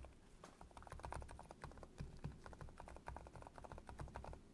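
Typing on an AVAX GM03 PRO mechanical keyboard fitted with Gateron EF Silent Yellow switches: a rapid stream of faint, muffled keystrokes.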